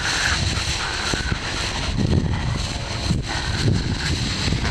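Wind buffeting the microphone, a gusty low rumble that swells and fades.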